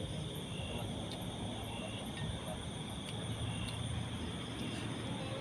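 Forest insect chorus: crickets and other insects buzzing steadily at several high pitches, with one insect chirping about twice a second, over a low rumble.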